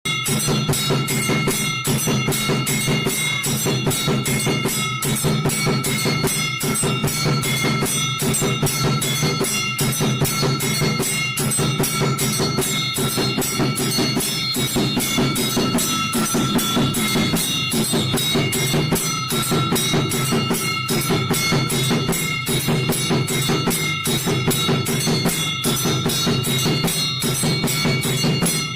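Temple bell rung rapidly in a fast, even rhythm, its ringing held on between strikes, with drums beating along.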